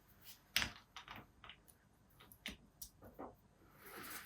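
Scattered light clicks and taps of small metal parts being handled: brake pads and their retaining pin being fitted into a motorcycle front brake caliper. One sharper click about half a second in is the loudest, with a short soft rustle near the end.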